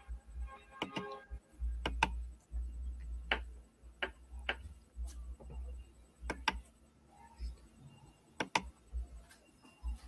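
Scattered sharp clicks at irregular intervals, about a dozen, from computer mouse and keyboard use picked up on an open video-call microphone, over a low rumble that comes and goes.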